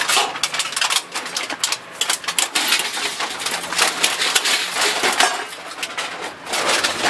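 Scrap metal and electronic junk clattering and scraping as a gloved hand rummages through a pile and shifts a steel computer case: a dense run of clanks and clicks.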